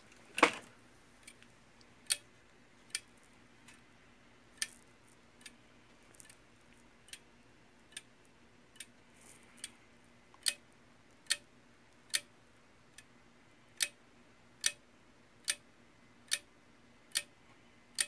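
Relay on an LG air-conditioner/heater control PCB clicking in and dropping out over and over at a steady pace, about one click every 0.8 s: relay chatter, the fault symptom of a board that will not power up properly. A louder click about half a second in as the mains plug goes in.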